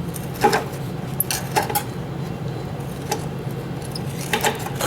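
Scattered metallic clicks and clinks, about six spread irregularly, as a stiff old roller drive chain on a Kawasaki KLT 200C three-wheeler is worked round by hand an inch at a time. A steady low hum runs underneath.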